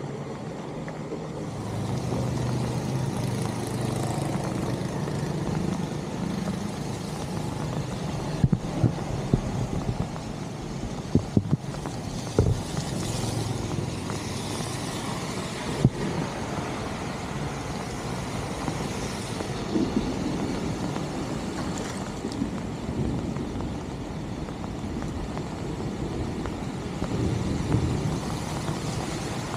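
Steady rain and water noise on a flooded street, with a car driving past on the wet road near the end. A few sharp knocks come between about 8 and 16 seconds in.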